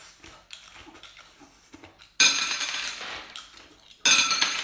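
A metal skewer scraping and clinking against teeth as grilled oyster meat is pulled off it by mouth. It comes as two loud scraping strokes about two seconds apart, with faint mouth and chewing noises before them.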